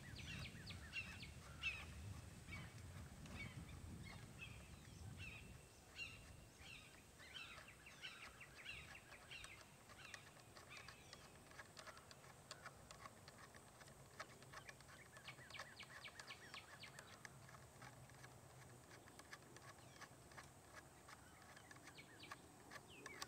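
Faint outdoor ambience of birds calling over and over, many short chirps, with a low rumble during the first five seconds.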